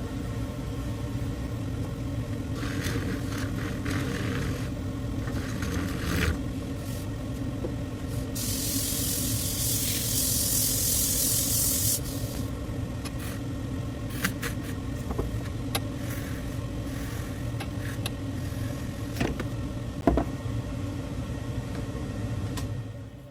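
Lathe motor running with a steady hum as a tool handle is worked on it; from about eight to twelve seconds in, a loud hissing cut on the spinning handle, with a few sharp clicks later. The machine runs down just before the end.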